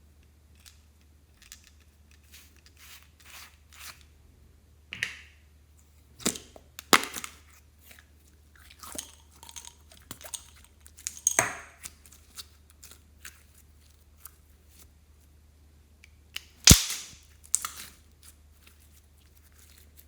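Slime being squished and pressed by hand, its trapped air pockets popping in irregular sharp clicks and pops with short sticky crackles between, the loudest pop about three quarters of the way through.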